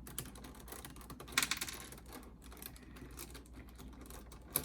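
Plastic pieces of a 5x5 Rubik's cube clicking as corner pieces are handled and pressed into the partly rebuilt cube, with a quick cluster of clicks about a second and a half in and one sharp click near the end.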